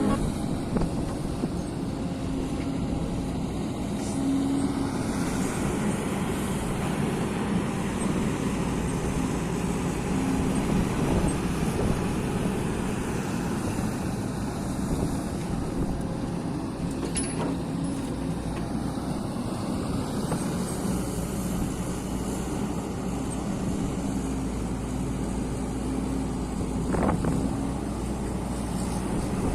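Kobelco hydraulic excavator's diesel engine running steadily as the machine works, with a couple of brief sharp knocks, one a little past halfway and one near the end.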